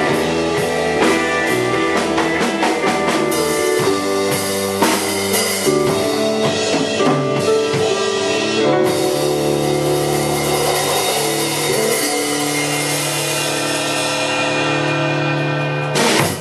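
Live rock band of electric guitar, bass, keyboard and drum kit playing the close of a song: driving drum hits under the chords, then from about halfway a long held final chord with cymbal wash that cuts off sharply near the end.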